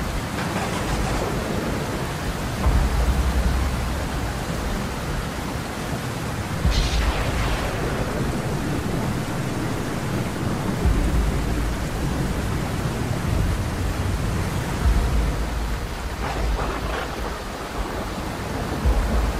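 Heavy rain in a storm: a steady rushing hiss, with a low rumble swelling up every few seconds.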